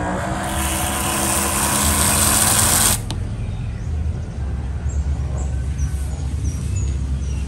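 Hand-pump pressure sprayer spraying liquid in a loud, steady hiss that cuts off suddenly about three seconds in. A low steady rumble continues underneath.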